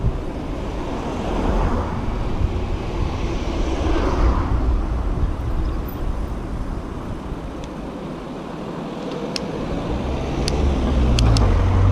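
Wind rumbling on an action camera's microphone while cycling along a city street, with road traffic going past that swells about a second in and again around four seconds. A few sharp clicks come near the end.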